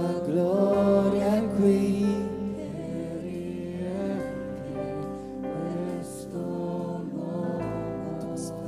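Live worship band playing a slow, gentle song. For the first two seconds a singing voice glides in pitch over the band, which then holds sustained chords over a steady bass.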